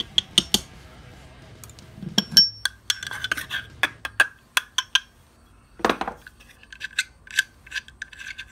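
Sharp metallic clicks and clinks as a cast-aluminium satellite dish LNB housing is handled, some with a short ring. A duller knock comes about six seconds in.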